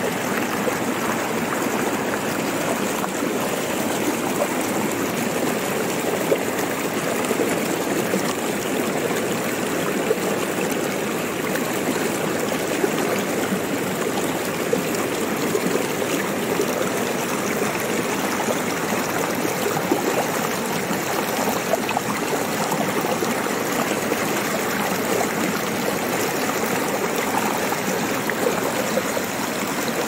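Shallow rocky stream running over stones and small cascades: a steady rush of water with constant splashing and gurgling.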